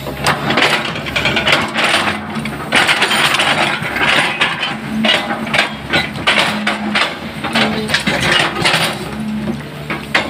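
Caterpillar hydraulic excavator's diesel engine running while the bucket digs and scrapes through soil full of roots and branches. A dense run of cracks, knocks and crunches comes from the woody debris and the bucket working the ground.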